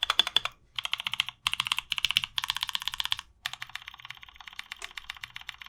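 Fast typing on a 60% mechanical keyboard with lubed NovelKeys Blueberry tactile switches in a 512 WKL case. It comes as runs of rapid key clicks with three brief pauses. The typist hears the switches as scratchy: the lube does not cure it.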